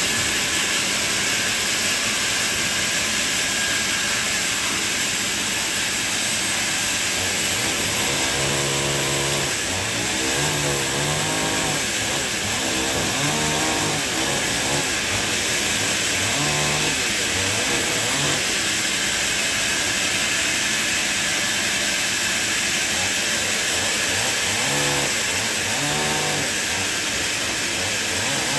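Sawmill blade cutting through a log, a steady loud rushing noise. Now and then, about six times from a third of the way in, the pitch of the machine's drive shifts up and down.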